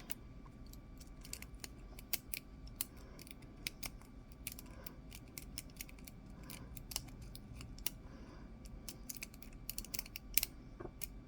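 Lock pick and tension wrench working the pins of a cheap brass pin-tumbler padlock: small, irregular metallic clicks and ticks, some coming in quick little clusters.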